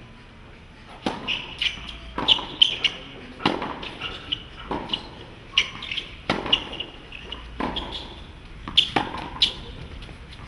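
Tennis rally on a hard court: ball struck by racket strings and bouncing on the court, a sharp knock every second or so, each with a short ring.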